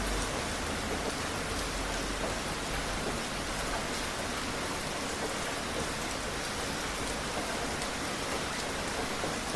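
Steady rainfall, a dense even hiss of rain on a surface with scattered individual drops.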